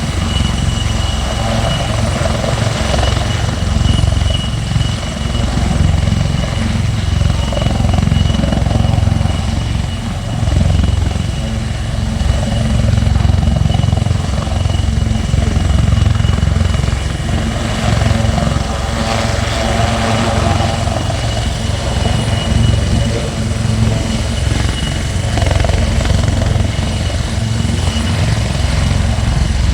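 Leonardo AW159 Wildcat HMA2 helicopter flying, its twin LHTEC turboshaft engines and main rotor making a continuous low, uneven rotor sound with a thin, steady high whine over it.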